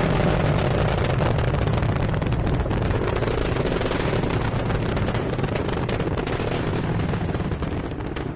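Rocket engines during ascent: a steady, deep roar full of dense crackling, easing off a little near the end.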